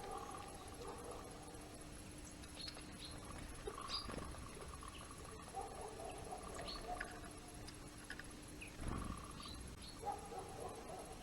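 Small garden birds giving short, high chirps and ticks at irregular intervals, with a dull thump about four seconds in and another near nine seconds.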